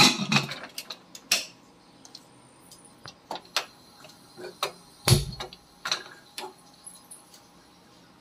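Scattered metal clicks and clanks of a pressure cooker being handled and set on a gas stove's burner grate, with one heavier thud about five seconds in as the cooker comes down onto the grate.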